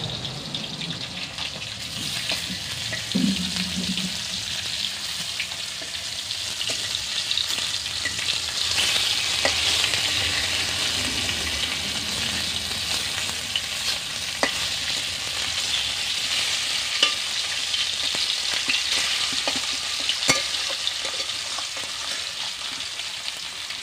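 Pieces of fish frying in oil in a steel kadai, a steady sizzle, with a metal spatula scraping and knocking against the pan a few times as the pieces are turned.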